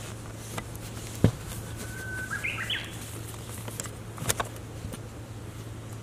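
A Japanese bush warbler sings one hoo-hokekyo phrase about two seconds in: a steady whistled note, then quick rising notes. A sharp click comes about a second in and another about four seconds in, over a steady low hum.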